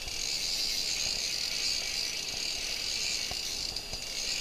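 A steady high-pitched hiss, with a couple of faint ticks about three seconds in.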